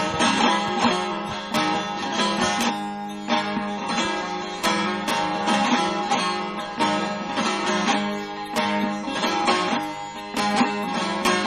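Instrumental folk music on a plucked string instrument: quick picked notes over a steady low drone.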